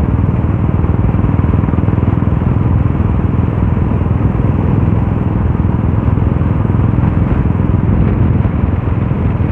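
Royal Enfield single-cylinder motorcycle engine running steadily under way at cruising speed, heard from the rider's seat. A low, rapid exhaust beat with road and wind noise mixed in, unchanging throughout.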